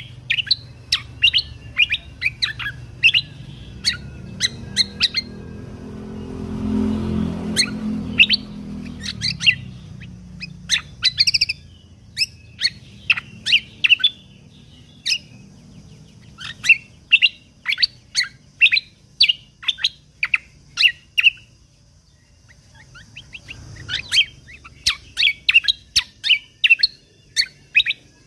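Kecial kombok (cucak kombo) songbird singing: a fast run of short, sharp chirps and clipped whistled notes, repeated in quick volleys. A low rumble rises under the song from about six to nine seconds in, and the song pauses briefly a little past twenty seconds.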